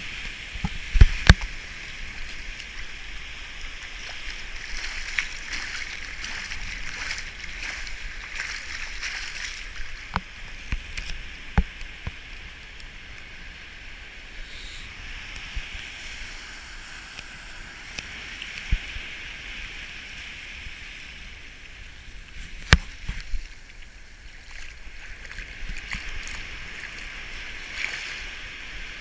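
Shallow surf washing in over wet sand and shells, a steady hiss of foamy water that swells and eases, with a few sharp knocks, the loudest about a second in and again near the end.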